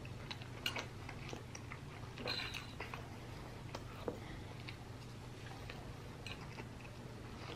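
A person eating a forkful of rice and chicken: faint chewing and mouth sounds with a few small clicks, over a steady low hum.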